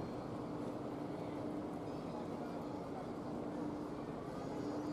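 Outdoor ambience at a station entrance: a steady hum over a continuous wash of background noise.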